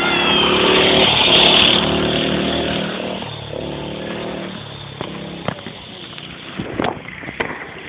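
A motor vehicle's engine driving past, loudest about a second and a half in and fading away over the next few seconds. A few sharp clicks follow near the end.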